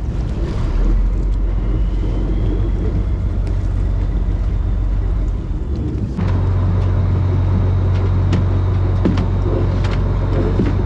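A fishing trawler's engine running with a steady low hum. About six seconds in it steps abruptly to a louder, higher hum, with scattered light knocks.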